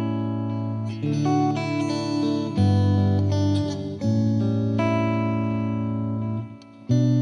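Background music: guitar chords held and changing every second or so, with a brief break shortly before the end.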